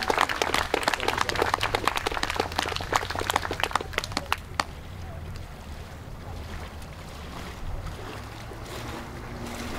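Crowd clapping, dying away about four and a half seconds in; then a quieter low rumble, with a low steady hum starting near the end.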